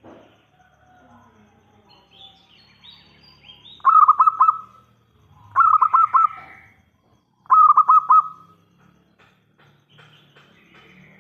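Zebra dove (perkutut) cooing its song three times, each phrase a quick run of rolling notes, with faint high chirps of small birds in between.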